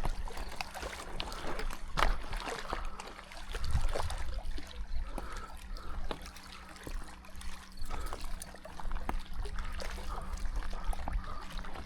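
Water trickling and lightly splashing, with many small scattered clicks.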